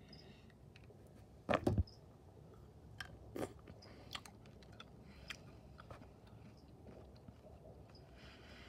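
Jelly bean being chewed, with sharp wet mouth clicks, and a short cluster of loud knocks about a second and a half in.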